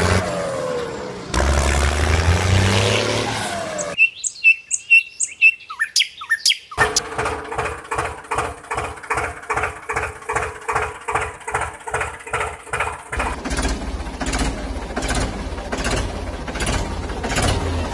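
A run of changing sounds: sliding, whistle-like pitch glides at first, then a few sharp clicks and chirps. From about seven seconds a tractor-engine chugging sets in at about two and a half beats a second, and turns noisier with a low rumble near thirteen seconds.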